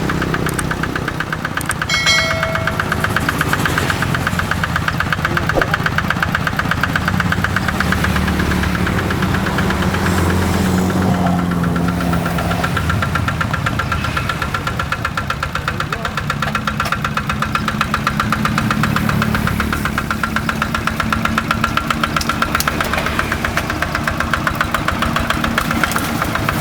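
Kubota RD85 DI-2S single-cylinder diesel on a hand tractor running steadily with an even rhythm.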